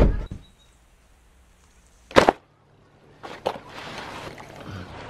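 A thump at the start and a sharp knock about two seconds in, then the crinkling rustle of a deflated vinyl inflatable tube being unfolded and handled.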